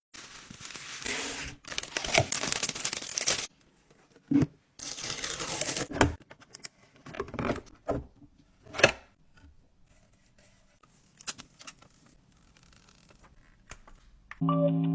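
Toy packaging being torn open: two long tearing rips in the first six seconds, followed by scattered crinkles and clicks that fade out. Keyboard music begins just before the end.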